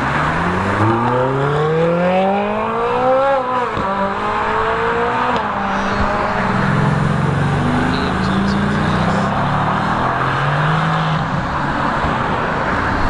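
A Ferrari 458's V8 accelerating hard away, its revs climbing steeply, dropping at a gearshift about four seconds in, then climbing again. After that a second sports car's engine passes at lower, uneven revs, over steady road noise.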